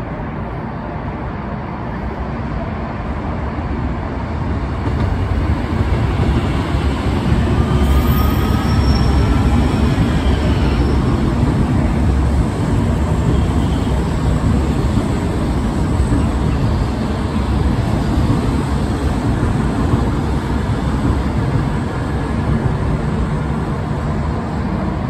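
Seoul Subway Line 3 3000-series train passing on an elevated track. A steady rumble of wheels on rail builds over the first several seconds and then stays loud, with a faint rising whine near the middle.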